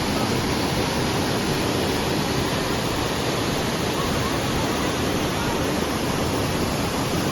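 Steady rushing roar of a waterfall, Minoo Falls, its falling water making an even, unbroken noise.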